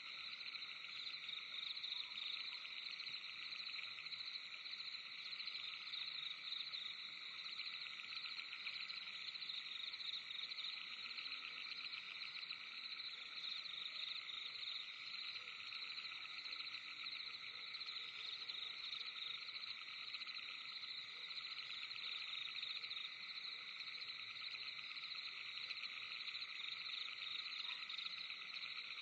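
Forest night ambience: a dense, steady chorus of calling insects, a high-pitched trilling that never lets up.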